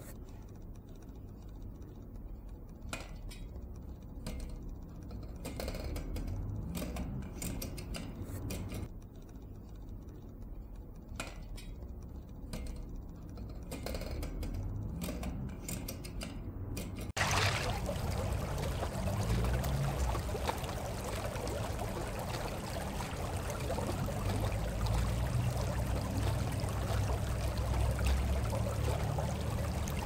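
Light clicks and rattles from a small metal model water turbine being turned by hand, over a low rumble. About halfway through it cuts to a steady rush of flowing water around the model turbine.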